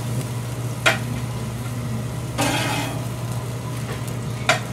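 Burger patties sizzling on a gas grill over a steady low hum, with a metal spatula clicking against the grill grates about a second in and again near the end, and a short scrape about halfway through.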